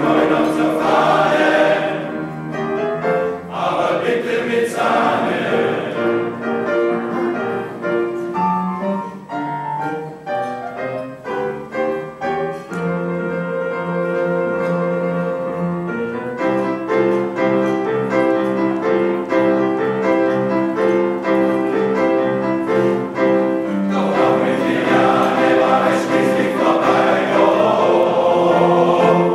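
Male-voice choir singing with upright piano accompaniment. The singing goes soft in the middle and swells louder again near the end.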